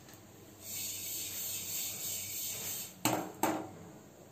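Poppy and white sesame seeds swirled in a steel kadai, a steady high hissing rustle lasting about two seconds, then two sharp metallic knocks of the pan or utensil a moment apart.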